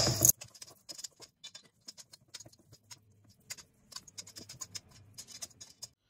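Hands squeezing and pressing crumbly shortcrust pastry together in a stainless steel bowl, bringing it into a dough: faint, irregular crackling and pattering of crumbs. A short, louder noise at the very start cuts off abruptly.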